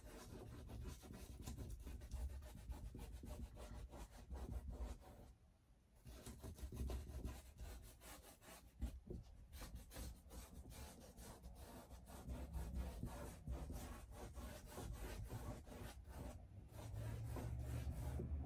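Paintbrush rubbing and scrubbing paint across a large canvas in quick repeated strokes, with a short break about a third of the way in and another near the end.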